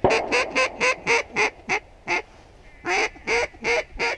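Loud mallard-style quacking in a hen's greeting-call pattern: a quick run of about nine quacks, then after a short pause about five more.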